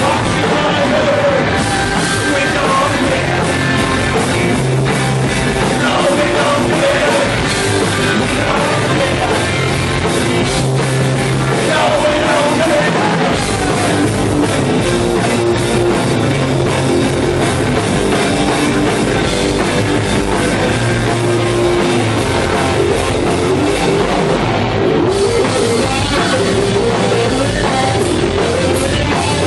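Punk rock band playing live at full volume: electric guitars, bass, drums and a singer.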